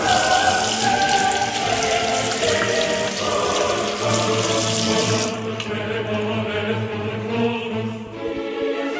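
Bathroom sink faucet turned on and running into the basin with hands under the stream, shut off suddenly about five seconds in. Choral music plays throughout.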